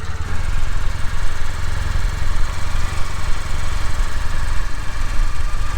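Kawasaki W800's air-cooled parallel-twin engine running steadily, with a low, rapid, even pulsing.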